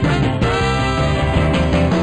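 Background music: a band-style instrumental tune with a steady beat.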